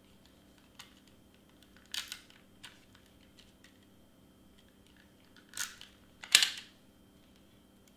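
Hands handling cardstock and a tape runner: a few short paper crinkles and scrapes, one about two seconds in and two more a little before and after six seconds, the last the loudest.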